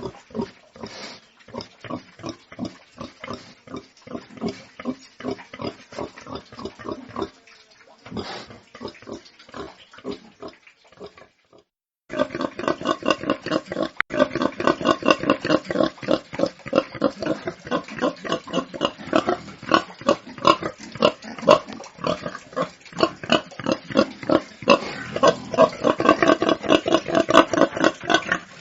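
Pigs grunting in quick, continuous series. After a short break about eleven seconds in, the grunting comes back louder and denser.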